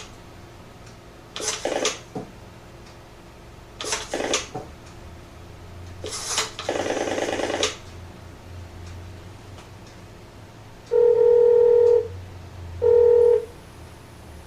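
Antique Western Electric three-slot payphone handling coins: three short ringing metallic bursts a couple of seconds apart, the last one longer. Near the end come two loud steady tones, the first about a second long and the second shorter.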